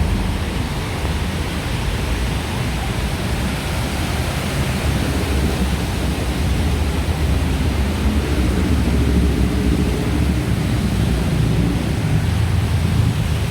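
Steady rushing noise of floodwater and traffic on a flooded city road, with a deep rumble throughout. A low droning hum joins about halfway through.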